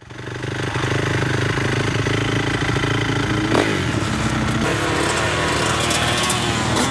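Motorcycle engines running, their pitch rising and falling as they rev from about halfway on, with a sharp click about halfway through.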